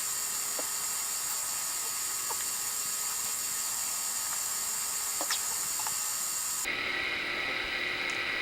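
Steady background hiss with a few faint, short ticks. About six and a half seconds in, the hiss abruptly changes character.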